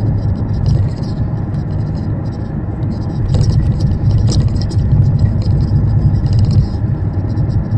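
Steady low rumble of a BMW E38, with clusters of sharp knocks about three to five seconds in: the rear shock absorber top mounts knocking because they have failed.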